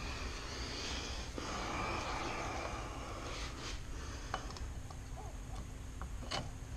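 Quiet handling noise of a two-stroke dirt-bike cylinder being lifted and turned in latex-gloved hands, its rubber coolant hoses rubbing, with a few light clicks in the second half.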